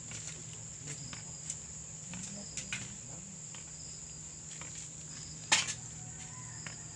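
Crickets chirring in a steady, continuous high-pitched trill, with a few small clicks and one sharp click about five and a half seconds in.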